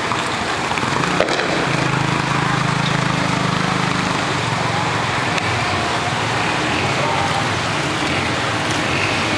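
Steady outdoor noise on a flooded street, a continuous wash of sound, with a low hum from a motor vehicle about a second and a half in that fades after a few seconds.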